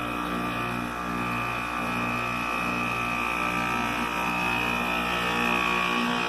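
Goodman package heat pump's compressor running in defrost mode: a steady low hum with a constant high whine over it, the whine growing a little stronger about a second in. The owner says it doesn't sound happy and doubts the compressor is worth repairing.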